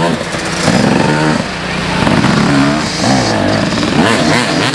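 Dirt bike engine revving hard, its pitch climbing and dropping several times as the bike accelerates.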